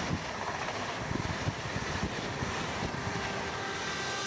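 ICE high-speed electric train passing close by at speed, a steady rush of air and wheel noise that ends as its last car goes by near the end, with wind buffeting the microphone.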